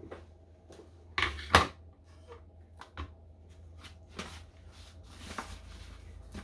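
Handling noises from a stuff sack of metal cookware being put on kitchen scales: a pair of sharp knocks about a second in, lighter knocks after, then soft rustling of the nylon bag as it is set down near the end.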